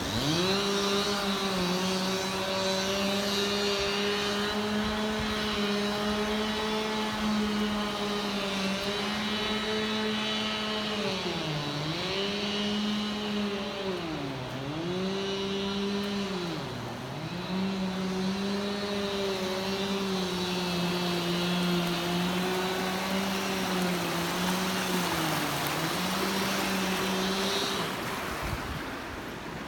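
A motor running at a steady pitch that sags briefly about four times, then cuts out near the end, leaving a steady hiss.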